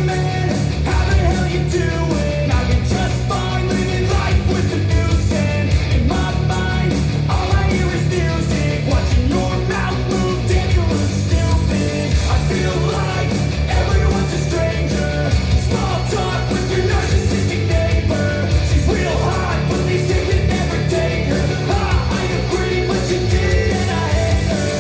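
Rock song with singing, drums and a heavy bass line, played as a sound test through a Yamaha NS-SW100 subwoofer and Elac Debut 5.2 bookshelf speakers.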